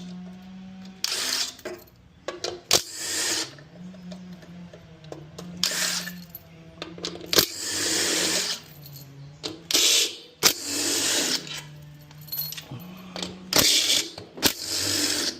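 Hand tools working the bolts that hold the motor of a Samsung front-load washer: short spells of metallic rattling and clinking, about eight in all, with sharp clicks between them.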